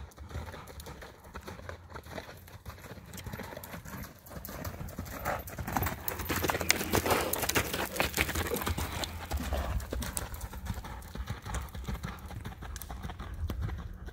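Horse's hoofbeats on sand arena footing, growing louder as the horse passes close by in the middle and fading as it moves off.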